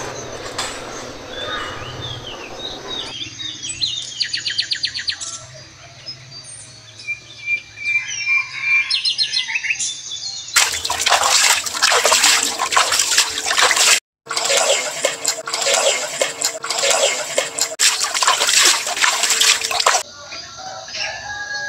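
Small birds chirping and trilling. Then about ten seconds of loud, crackling, rushing noise, with a brief dropout partway through. It stops abruptly and the bird calls return.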